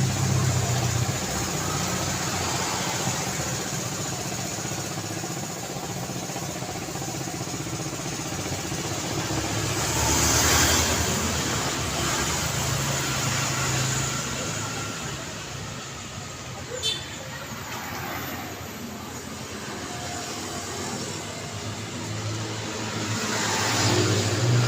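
Road traffic: cars and other vehicles running past steadily, with louder passes about ten seconds in and again near the end, and one short sharp click about two-thirds of the way through.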